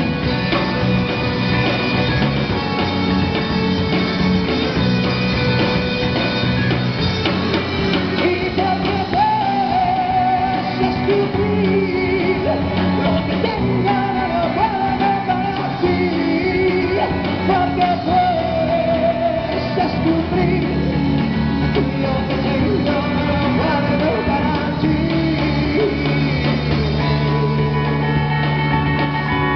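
Live rock band playing loudly: electric guitars and drum kit through small amplifiers, with a man singing into a microphone from about eight seconds in until shortly before the end.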